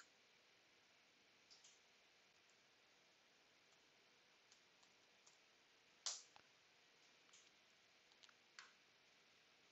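Near silence broken by a few faint, scattered clicks from a computer mouse and keyboard, the clearest about six seconds in.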